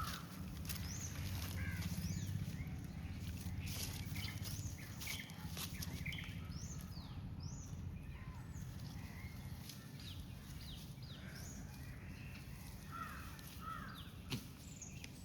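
Birds chirping outdoors in many short, high calls, over a low steady rumble that is strongest in the first few seconds. A single sharp knock comes near the end.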